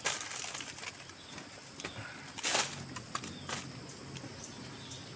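Steady high-pitched insect drone, with a few light clicks and a short rustle about two and a half seconds in.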